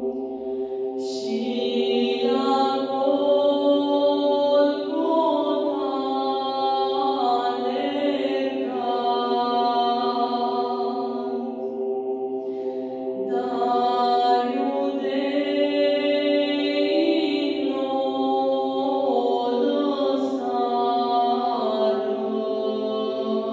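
A woman's solo voice singing a slow, chant-like melody with long held and gliding notes, over a steady sustained drone underneath.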